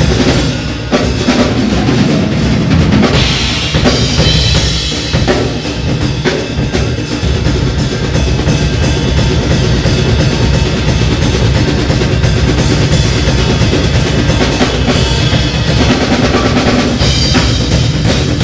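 A drum kit and a djembe play a fast, dense percussion groove together, with bass drum, snare and toms driving under the cymbals. Cymbal wash swells up a few seconds in and again near the end.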